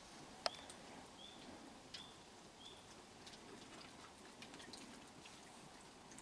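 A quiet night with a few sharp clicks, the loudest about half a second in, from raccoons feeding on a wooden deck. Faint short high chirps repeat about every 0.7 s through the first three seconds.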